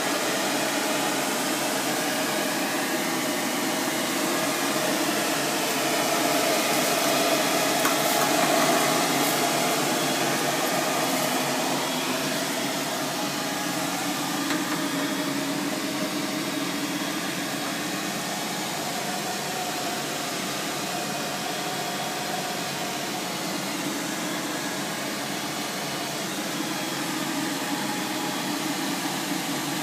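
Steady rushing noise like moving air or a running fan, with a wavering hum in it; it swells slightly about eight seconds in, then settles a little quieter.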